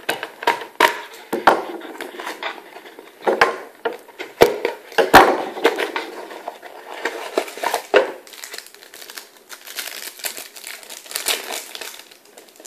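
A utility knife slitting a cardboard trading-card pack, then the cardboard flap torn back and the plastic-wrapped stack of cards crinkling as it is pulled out. Irregular sharp snaps and crackles at first, the loudest about five seconds in, turning into denser crinkling in the second half.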